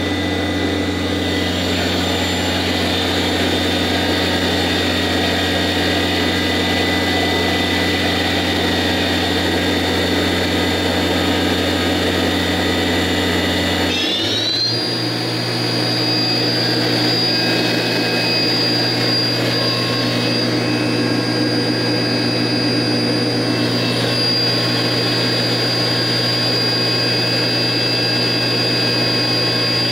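Daewoo DMV-500 CNC vertical machining center's spindle running on an M03 S8000 command (spindle on, clockwise, at up to 8,000 rpm): a steady mechanical whine. About halfway through, the whine rises in pitch and then holds steady at the higher pitch.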